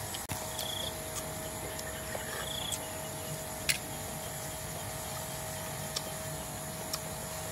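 Steady insect drone and a constant hum, broken by a few sharp clicks of snail shells and a toothpick being handled during eating. The loudest click comes a little under four seconds in.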